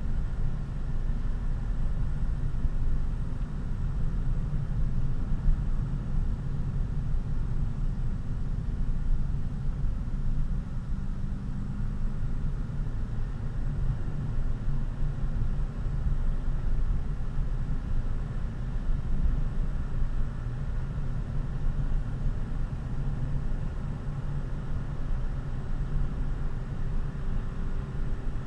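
Steady in-cabin rumble of road and engine noise from a Honda Civic Si coupe (FG2) cruising at an even speed, with no revving or gear changes heard.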